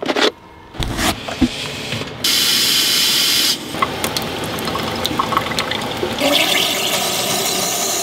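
Water lines being blown out with compressed air from an air compressor: a few knocks, then a loud air hiss about two seconds in, followed by air and water rushing and spitting out of the open faucet and shower lines. The lines are being cleared of water so they won't freeze.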